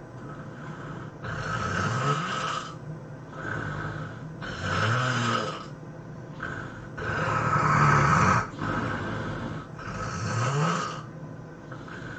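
A person snoring: four loud snores about every two and a half to three seconds, with quieter breaths between them.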